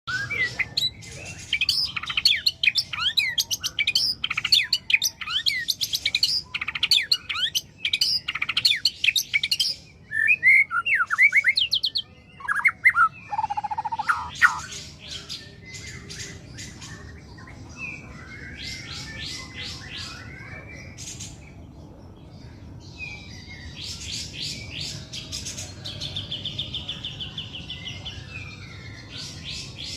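Male white-rumped shama singing: a loud, varied run of quick whistles and sweeping notes, then quieter, sparser song and calls from about halfway through.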